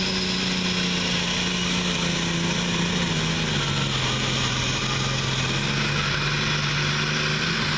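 Turbocharged diesel limited prostock pulling tractor at full power under sled load. The engine note slowly drops as the load builds, with a high turbo whine above it.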